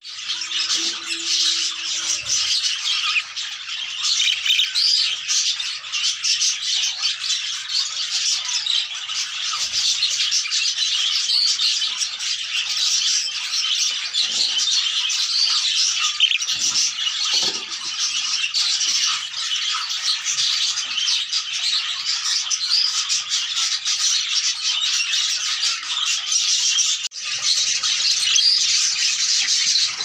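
Many budgerigars chattering and warbling together: a dense, continuous twitter of high chirps and squawks.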